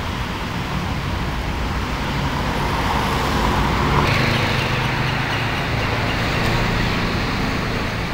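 Steady rumble and hiss of road traffic, with the background changing abruptly about four seconds in.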